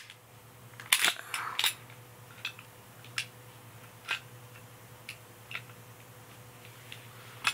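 Sharp mechanical clicks of an airsoft pistol being handled: a quick cluster of clicks and clacks about a second in, then single clicks about once a second. A faint steady hum runs underneath.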